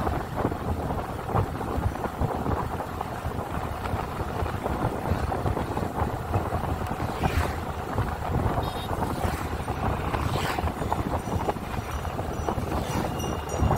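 Wind buffeting the microphone of a camera riding on a moving motorbike, a steady rushing rumble with road noise underneath. A few brief swooshes as oncoming vehicles pass.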